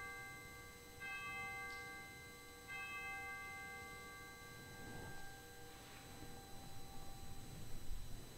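Altar bell rung at the elevation of the consecrated host. A stroke from just before is still ringing, then it is struck again about a second in and once more nearly three seconds in, each stroke ringing out clearly and slowly fading.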